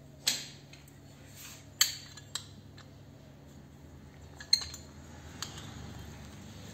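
Metal clinks from a hand-press lemon squeezer and steel kitchenware handled while a lemon is pressed over a steel mixer jar. There are about five separate sharp clinks, the loudest nearly two seconds in and again about four and a half seconds in, over a faint steady hum.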